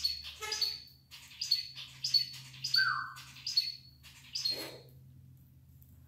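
A pet parrot calling in a run of about seven short, sharp chirps with a high held note, one every half-second or so, with a single lower, longer call about three seconds in.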